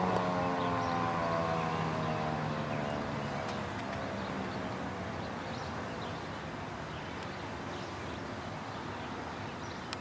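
Federal Signal 2001-SRNB outdoor warning siren winding down at the end of its test run: its tone slides down in pitch and fades away over the first four seconds or so, leaving a steady hiss of outdoor background noise.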